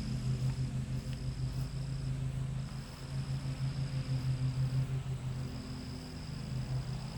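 Lawn mower engines running steadily, a low pulsing drone. A high thin buzzing tone comes and goes over it, stopping for about half a second a few times.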